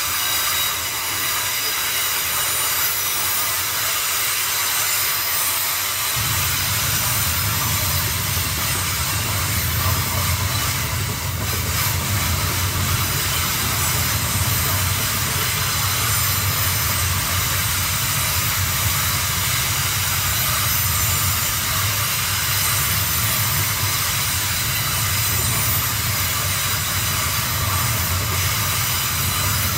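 Freight train wagons rolling past with a steady low rumble that starts about six seconds in, over a continuous hiss.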